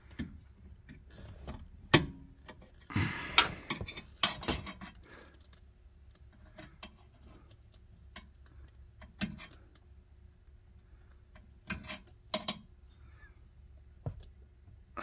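Small screwdriver clicking and scraping against a plastic wiring connector as it is pried at to work it loose. There is a sharp click about two seconds in, a stretch of rustling and scraping a second later, then a few scattered clicks.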